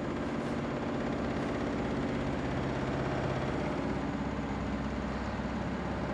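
Steady low machine hum with several held tones, a few of which shift in pitch about halfway through.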